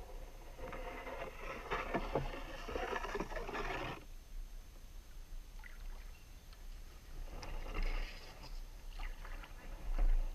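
Kayak paddle strokes: water splashing and dripping off the paddle blades, in two spells with a quieter gap between them, over a low wind rumble on the microphone.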